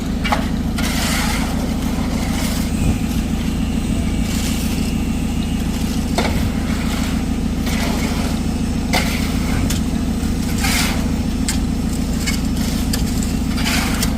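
Small concrete mixer engine running steadily, with several short scrapes at irregular intervals over it.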